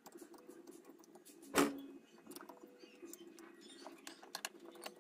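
Small clicks and taps from hands handling a power drill's soldered wires and plastic parts as they are fitted, with one louder knock about a second and a half in, over a faint steady hum.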